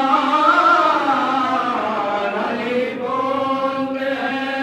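Men chanting a Shia mourning recitation (soz/noha) in slow, drawn-out melodic lines. A lead voice at the microphone holds long, gliding notes, with other men chanting along, and no instruments.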